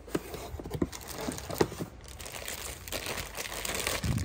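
Clear plastic wrapping crinkling and cardboard packaging rustling as a boxed pressure cooker and its lid are unpacked by hand, with scattered small clicks and taps.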